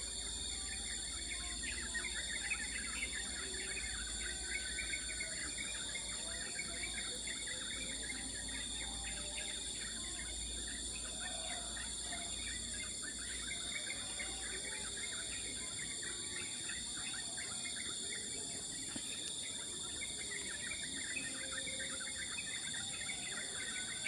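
A busy chorus of many small birds chirping in quick, short calls, over a steady high-pitched drone of insects.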